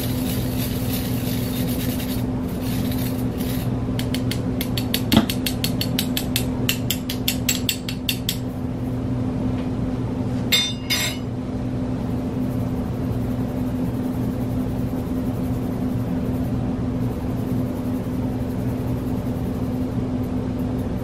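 Spoon rubbing crushed freeze-dried fruit and sugar against a mesh strainer in quick rasping strokes, about four or five a second, for several seconds. There is a single knock partway through the run and a short clink a couple of seconds after it stops. A steady low hum runs underneath.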